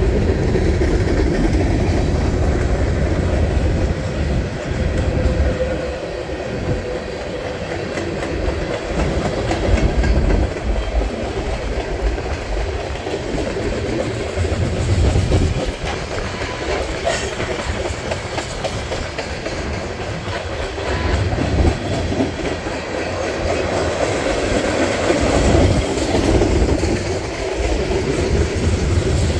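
Freight cars of a Canadian National manifest train rolling steadily past on the track: a continuous din of steel wheels on rail, strongest in the low end, with scattered clicks.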